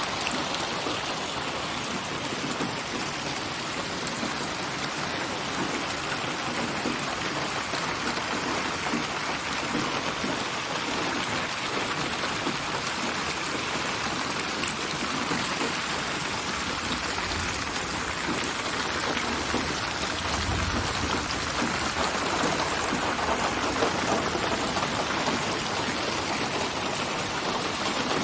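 Steady rain falling and pattering on a surface, an even hiss with no let-up.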